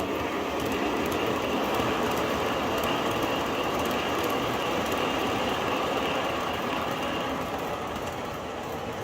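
MTH O-gauge R-40 Slant subway model running on three-rail track between stops, with a steady rush of subway-car running sound. A faint high whine fades out about seven seconds in.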